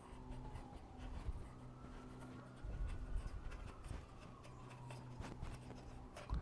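Faint scratching and light clicks of a screw being turned by hand into a roof-rack cargo basket mount, over a low steady hum.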